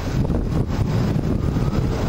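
Wind buffeting the microphone, a steady low rumble, mixed with the noise of lorries crawling along a snow-covered motorway.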